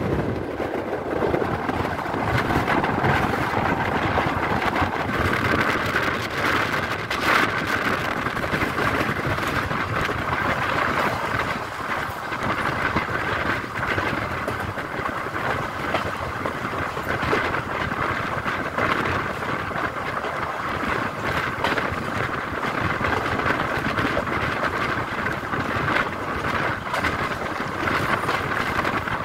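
Passenger train running at speed, heard from a coach window: a steady rolling noise of wheels on rail.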